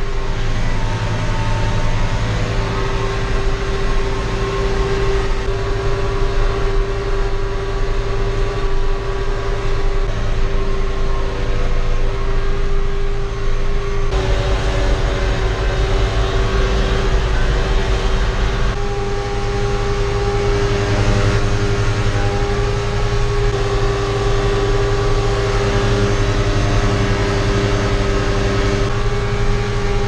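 John Deere 5085M tractor's four-cylinder diesel engine running steadily under load while it drives a Pöttinger Novadisc 265 disc mower cutting grass, heard from inside the tractor cab. A steady whine rides over the engine drone, and the sound shifts slightly about 14 and 19 seconds in.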